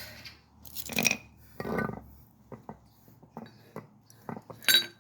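Brake caliper parts and tools being handled: scattered light metallic clicks and clinks, with a few scraping rustles early on and a louder ringing metal clink near the end.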